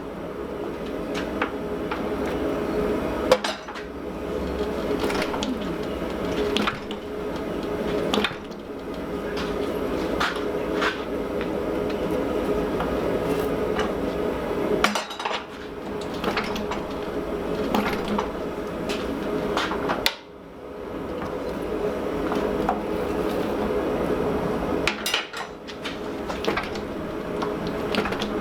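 Fly press repeatedly striking a hot 4140 steel disc to set down a centre boss, sharp metallic clanks about once a second at uneven spacing as the disc is turned between strokes, over a steady rushing background noise.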